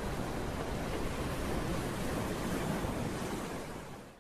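Ocean surf: waves washing in as a steady rush of noise, fading out near the end.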